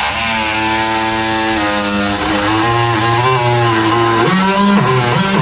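Music with a guitar playing held notes that bend in pitch.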